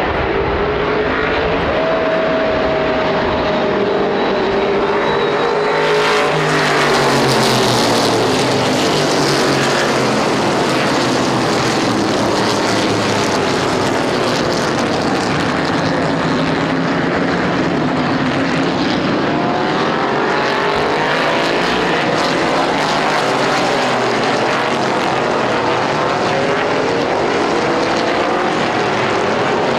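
A pack of historic Trans Am V8 pony cars accelerating hard from the green flag, many engines revving up and down over one another. Loudest about six to eight seconds in, as the field passes close.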